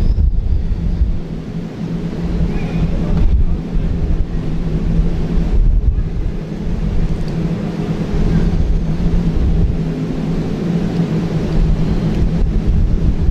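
Wind buffeting an open-air microphone: a loud, steady low rumble with a faint low hum underneath.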